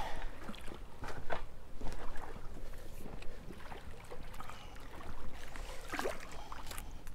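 Water splashing and sloshing at the edge of a rock bank as a hooked blue catfish is brought in to be landed, with scattered knocks and rustles over a low wind rumble on the microphone.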